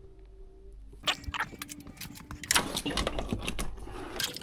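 Clicks and rattles of a charger plug and cable being handled while searching for the e-bike's charging port, over a faint steady hum.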